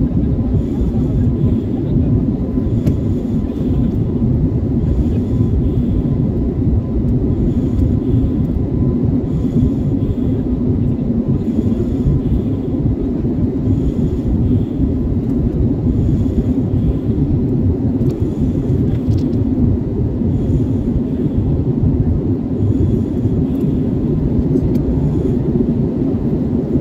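Steady cabin noise of an Airbus A320-family jet airliner climbing after takeoff: a deep, even rush of engine and airflow noise heard from a window seat over the wing, with a faint steady hum above it.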